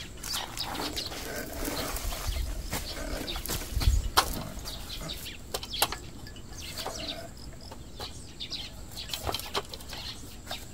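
Handling noises from harvest work: scattered clicks, knocks and rustles from a folding step ladder and plastic harvest crates being moved, with two sharp knocks and a dull thump about four seconds in.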